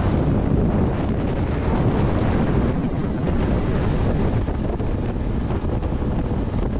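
Speed motorboat running fast: wind buffeting the microphone over the steady rush of the hull and its wake through the water.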